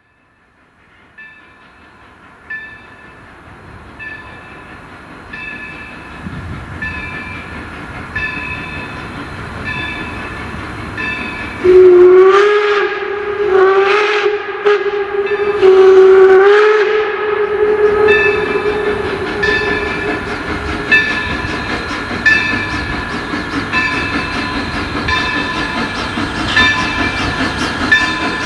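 Baldwin 0-6-0 steam switcher No. 26 approaching with its bell ringing about once every second and a bit, growing louder. From about 12 to 17 seconds in its steam whistle sounds a series of blasts that bend up in pitch as each one starts; these are the loudest sound. The locomotive's running rumble sits beneath.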